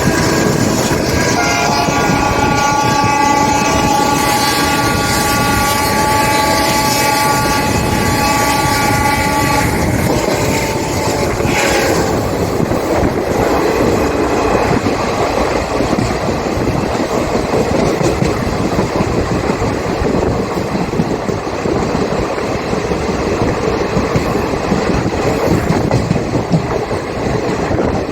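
Indian Railways locomotive horn blowing a long chord of several notes from about a second in, its pitch sagging as it dies away after about ten seconds. After that only the steady running noise of the moving train remains.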